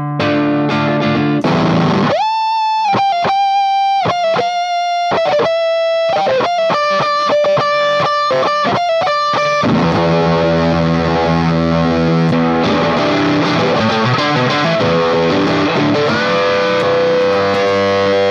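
Stratocaster-style electric guitar played through a Chorus Ensemble pedal set for crunch. A few strummed chords give way to single held lead notes. From about ten seconds in, a distortion pedal is switched in and the tone turns to thick, distorted chords and long sustained notes.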